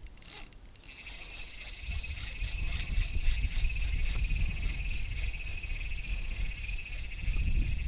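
Spinning reel being cranked against a hooked, hard-pulling fish: a run of mechanical reel noise. Under it are a low rumble that starts about a second in and a steady high-pitched hum.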